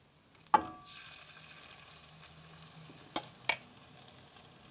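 Egg-white and shrimp filling sizzling faintly as it goes into hot butter in a frying pan. A ringing metal clink sounds about half a second in, and two sharp taps come about three seconds in.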